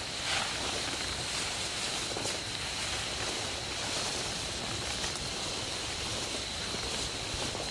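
A steady high-pitched insect trill, typical of night crickets, over a continuous rustling hiss.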